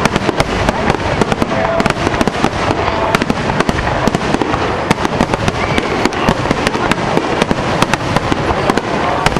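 Fireworks going off in a rapid, unbroken barrage of bangs and crackling.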